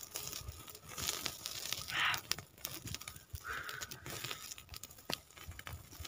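Rustling and tearing from hands working with food close to the microphone, with scattered small crackles and a brief brighter sound about two seconds in.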